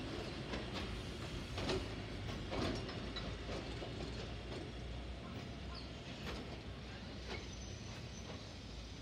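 Two-car electric train rolling slowly over depot trackwork. It makes a low rumble, and its wheels click over rail joints and points about once a second, slowly fading as it moves away.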